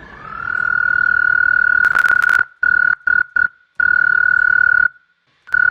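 Recorded frog call played back as a sample: one high, steady whistling note that slides up at the start and holds for about two seconds, then breaks into several shorter notes at the same pitch, with a few clicks about two seconds in.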